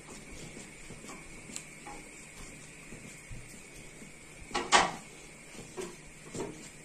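Palms pressing shredded kadayıf pastry down into a glass baking dish: soft, faint rustling and crackling of the thin dough strands, with a louder rustle about four and a half seconds in.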